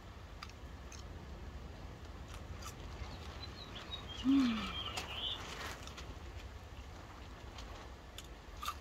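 Fast-food paper wrappers crinkling and being handled, with scattered light clicks. Faint chirping comes in the background around the middle, and a short low falling hum about four seconds in is the loudest moment.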